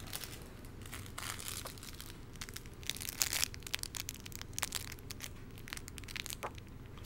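Irregular crinkling and rustling, like crinkly paper or plastic being handled, in a string of short crackles that grows busiest about three seconds in.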